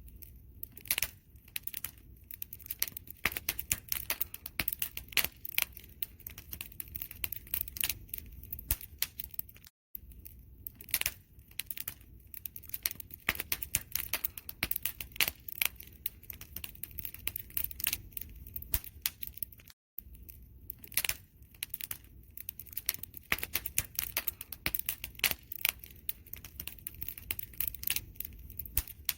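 Wood fire crackling and popping with dense, irregular sharp snaps over a low, steady rumble of flames. The sound drops out for a split second about every ten seconds.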